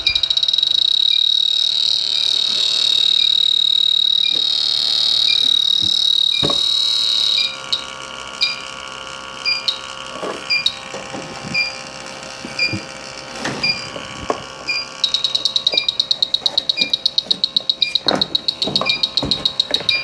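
Electronic refrigerant leak detector sounding: a continuous high alarm tone for about the first seven seconds, then slow steady ticking about twice a second, switching to rapid beeping about fifteen seconds in, with knocks of handling. The fast beeping and steady tone are the detector sensing refrigerant, a sign of a leak.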